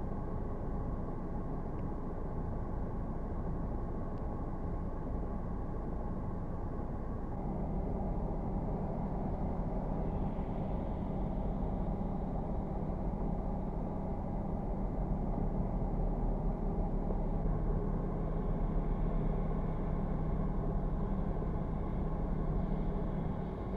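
A vehicle engine running steadily over a low, even background noise; the engine's low hum comes in more strongly about a third of the way in and holds.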